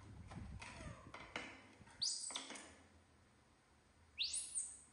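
Baby macaque screaming twice, about two seconds apart, each a shrill high call that sweeps sharply up in pitch: impatient begging for food. Soft clicks and rustles of a plastic snack box and plates come before the calls.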